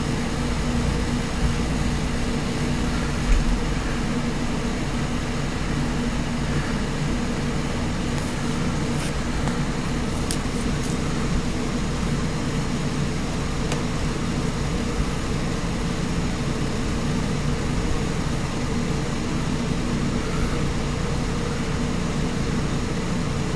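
Steady mechanical drone with a constant low hum, unchanging throughout, and a few faint ticks.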